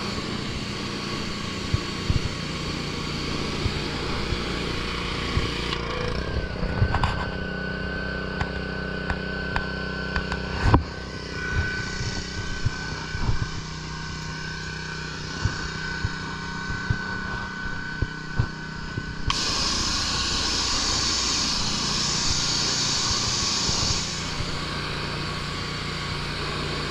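Small gasoline pressure washer engine running steadily, with a few sharp knocks in the first half. A loud spray hiss starts suddenly past the middle, lasts about five seconds, then cuts off.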